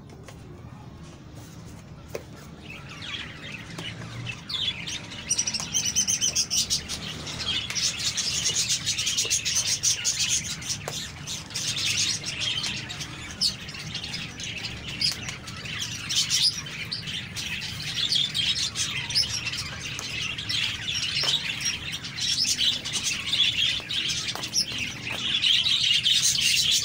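Many small birds chirping busily, starting about two or three seconds in and carrying on densely to the end, with a faint low hum underneath and occasional light clicks.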